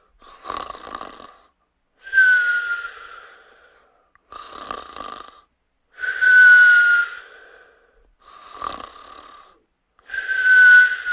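A sleeper snoring in a slow, regular rhythm, each rasping snore followed by a high whistling breath that slides slightly down in pitch. Three such snore-and-whistle cycles, about four seconds apart, with the whistles the loudest part.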